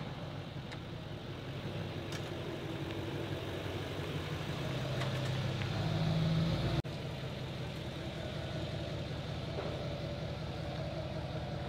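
Car engine idling steadily. It grows slightly louder for a couple of seconds, then drops back suddenly about two-thirds of the way through.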